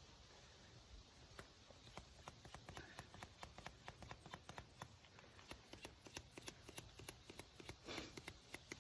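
Faint, quick irregular clicking, several clicks a second, starting about a second in, over near silence.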